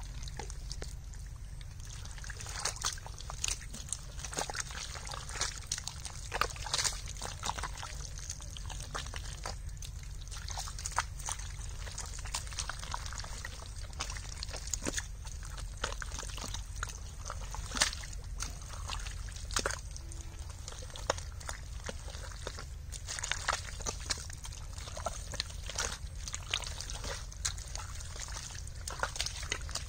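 Hands digging and scooping through wet, watery mud: a dense, irregular run of short wet squelches and sloshes over a steady low rumble.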